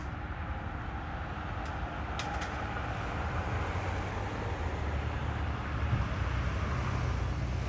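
Fire truck's engine rumble, growing louder as the truck approaches with its emergency lights on. There are a few brief sharp clicks about two seconds in.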